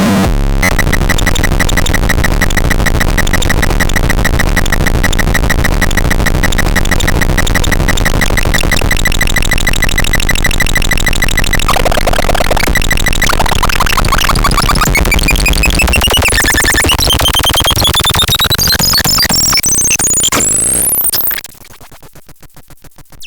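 Faderan sound demo: a harsh, buzzing electronic drone with a fast pulsing flutter. About halfway through the pitch starts to waver and glide, then sweeps steeply upward in several rising layers. About 21 s in it suddenly drops to a much quieter pulsing tone.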